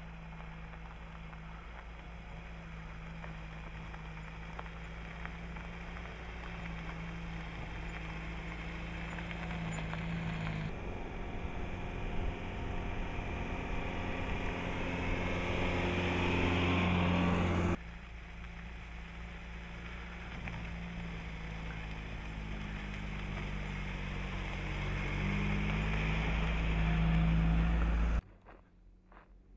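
Jeep Renegade small SUV driving by, its engine note growing louder as it approaches, heard in three clips with abrupt changes about 11 and 18 seconds in. The sound cuts off sharply near the end.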